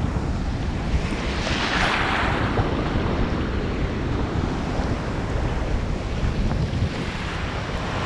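Sea surf washing in over sand at the water's edge, one wave swelling into a loud hiss about a second in and fading, with strong wind buffeting the microphone as a low rumble throughout.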